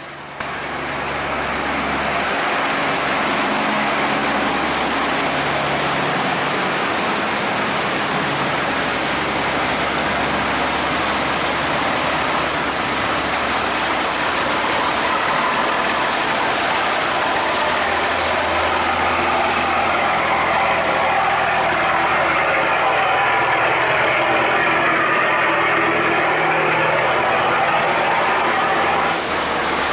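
Boat engine running steadily, a low engine hum under a broad rushing noise.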